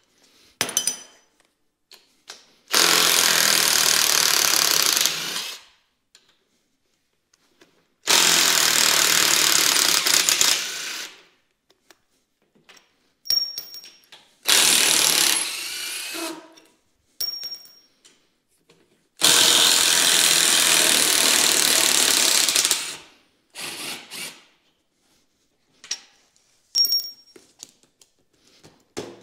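Cordless impact driver hammering out the bolts that hold a snow plow's rubber sideboard, in four runs of about two to four seconds each, the last the longest. Short clicks and clatters come between the runs.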